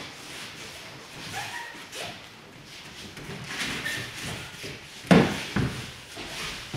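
Bare feet shuffling and cotton training uniforms rustling on foam mats. About five seconds in comes a loud thud, then a smaller one just after, as the attacking partner is brought down onto knees and hands in an aikido ikkyo takedown.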